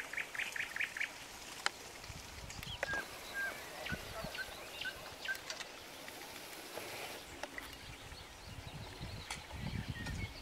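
Birds calling in an open meadow. A quick run of about a dozen short chirps comes at the start, followed by scattered short calls, with low rumbling now and then.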